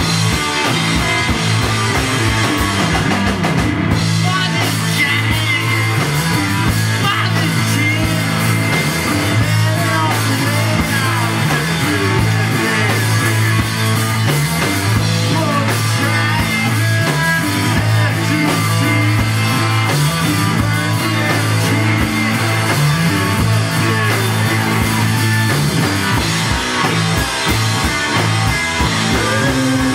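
A rock band playing live, loud and continuous, with electric guitar, bass and drum kit.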